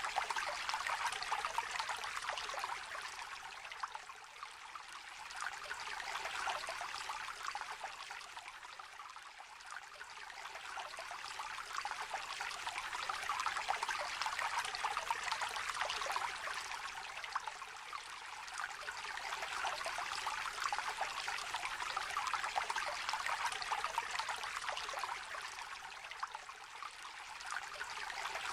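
A shallow river trickling and babbling over stones, a steady splashing hiss that swells and eases slowly every several seconds.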